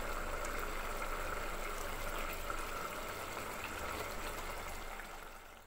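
Dal curry simmering in a clay pot while a spoon stirs it: a steady hiss with faint scattered pops, fading out near the end.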